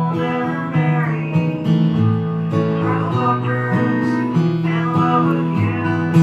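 Live band playing an instrumental passage of a folk-country song, led by strummed acoustic guitar over low notes that change about once a second.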